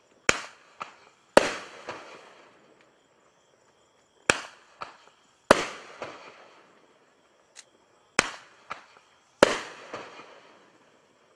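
A 200-gram consumer fireworks cake firing shot after shot: about six sharp bangs, several followed about half a second later by a softer pop, the loudest trailing off in a long echo.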